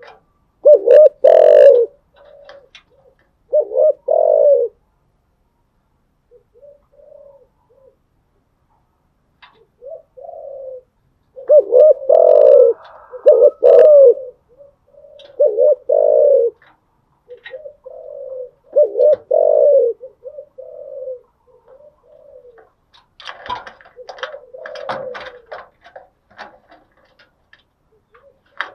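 Spotted dove cooing in repeated low phrases, with quiet gaps between them. A cluster of sharp clicks is heard near the end.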